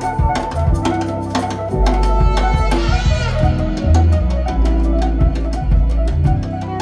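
Recorded jazz with busy drums, deep bass notes and keyboards, played back loud through large Wilson Audio loudspeakers in a demo room. A shimmering sound sweeps downward about three seconds in.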